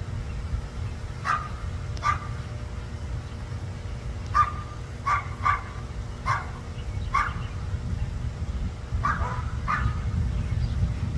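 A dog barking repeatedly: about nine short barks, some in quick pairs, over a steady low rumble.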